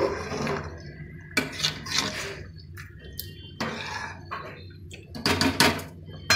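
Steel ladle stirring rice and liquid in an aluminium pressure cooker, scraping and knocking against the pot several times.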